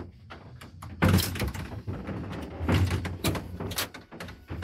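The cable car cabin's hand-worked folding glass doors being pushed open: a loud knock about a second in, then further sharp rattles and clicks from the door panels.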